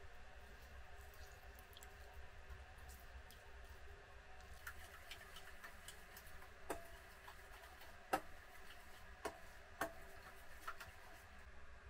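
Metal spoon stirring thick sauce in a stainless steel bowl: light scraping and ticks, then a handful of sharp clinks of spoon on bowl in the second half.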